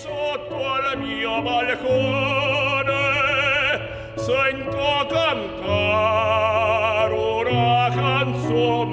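Opera-style singing: a voice holding long notes with a wide vibrato over a steady accompaniment of sustained bass notes that change every second or two.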